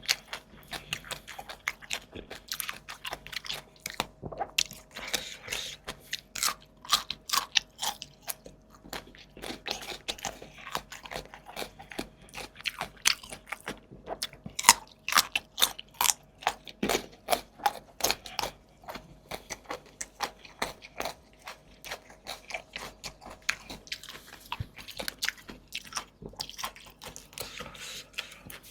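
Close-miked eating: mouth chewing with a rapid, irregular run of crunches and wet smacking clicks.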